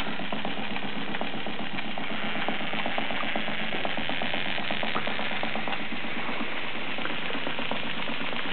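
Cyldon 13/2 toy steam engine, with a single-acting piston and semi-rotative valve, running steadily: a fast, even beat over a steady hiss.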